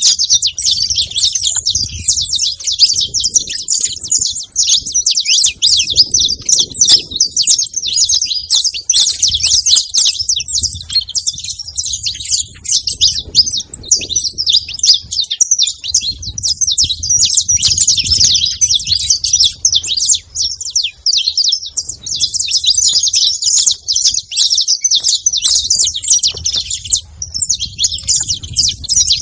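A flock of saffron finches chirping and calling all at once: a dense, unbroken chatter of many overlapping high chirps.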